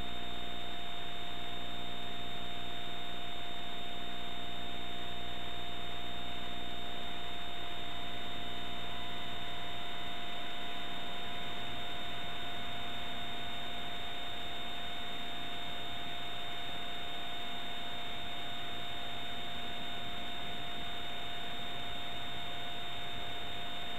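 Steady electrical hum with a constant high whine and hiss from a blank stretch of videotape playback. The low part of the hum fades out about halfway through, leaving the whine and hiss.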